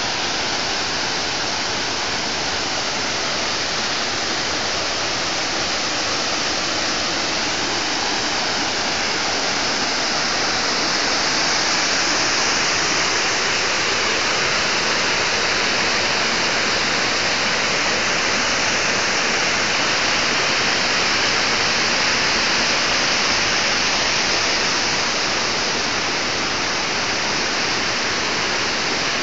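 Steady rush of fast-flowing water, an even hiss of a stream cascading over rocks.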